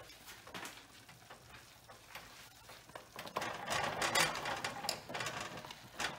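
Chopped mushrooms tipped from a plastic container into a saucepan of thick masala paste, landing as a quick run of soft taps and clicks from about three seconds in, with light clatter of the container and spatula against the pan.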